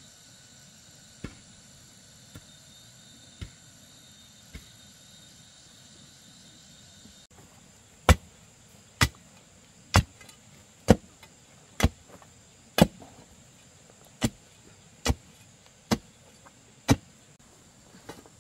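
A hand tool striking in slow, even blows, about one a second: faint knocks at first, then from about eight seconds in a run of ten loud, sharp strikes. A steady high insect trill runs behind them.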